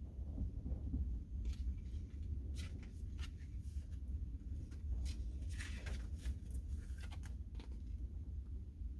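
Hands handling small light objects: a scatter of soft clicks and rustles, most of them between about one and a half and seven and a half seconds in, over a steady low hum.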